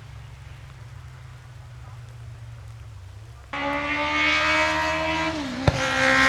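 A low rumble, then about three and a half seconds in a competition car's engine comes in suddenly and loudly at a steady high pitch. Near the end the pitch dips briefly and there is one sharp click.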